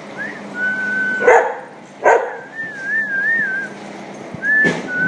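Small dogs whining and barking: a high, drawn-out whine that wavers up and down in the middle, broken by three short, sharp barks.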